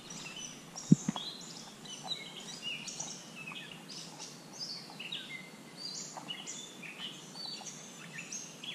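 Several songbirds singing from the trees: a steady run of quick high chirps and short downward whistles overlapping one another. A single sharp knock about a second in.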